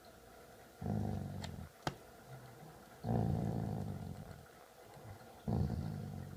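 Doodle dog play-growling while mouthing a hand, three low growls of about a second each. A single sharp click comes near the two-second mark.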